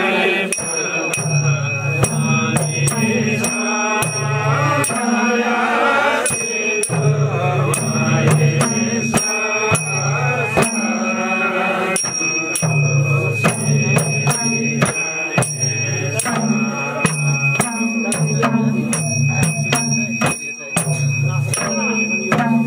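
A group of men chanting a ritual song in unison, with hand-beaten barrel drums keeping a steady rhythm of sharp strokes.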